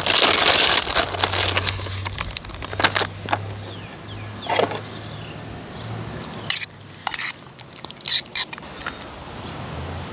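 Plastic bag of shredded cheddar crinkling during the first second, then a metal spoon scraping and clinking in a bowl of chili a few times, over a faint low hum.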